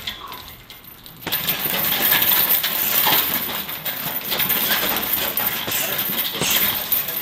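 Medicine ball repeatedly hitting a hanging heavy bag, with a quick, irregular run of knocks and metallic clinking and jingling from the swinging bag's hardware, picking up about a second in.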